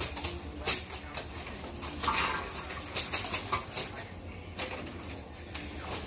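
A cockatoo flapping and clambering in its metal cage: sharp clacks and knocks against the bars, with a short noisy flurry about two seconds in.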